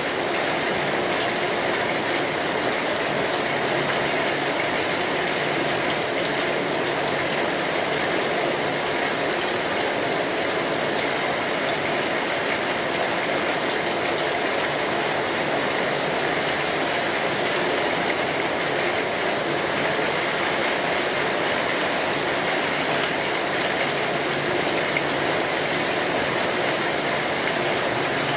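Steady rain falling: an even, unbroken hiss with a dense patter of drops.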